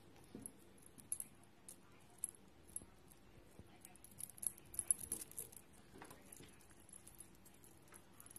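Light, irregular clicking and scratching as kittens scramble and bat at a wand toy on a rough wooden coffee table: claws and paws on the wood and the toy knocking against it. It is busiest about halfway through.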